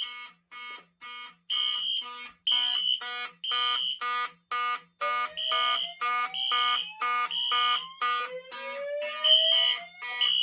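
Wheelock fire alarm horns sounding in march time, about two blasts a second with short gaps, the system in alarm from a manual pull station. A fainter tone glides slowly upward under the blasts in the second half.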